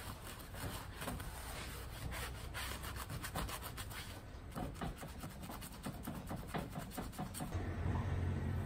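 Wet sponge rubbed back and forth in quick strokes over a leather boot sole set with wooden pegs, soaking the pegs so they swell and grip the leather. A low steady hum takes over near the end.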